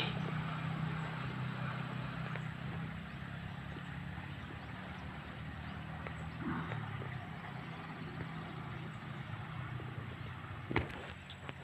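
A low, steady engine hum that gradually fades over the first several seconds, with a single sharp click near the end.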